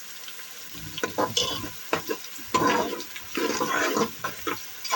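Onions, whole red chillies and cumin seeds frying in oil in a pressure cooker, stirred with a spoon: sizzling with clicks and scrapes, louder in bursts from about halfway through.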